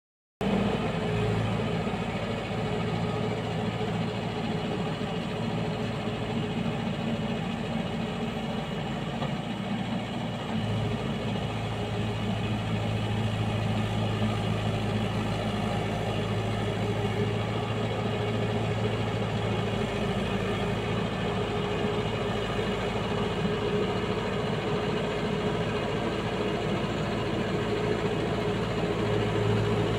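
Mahindra 585 DI tractor's diesel engine running steadily under load while driving a rotavator through flooded paddy mud. It grows a little louder about a third of the way in.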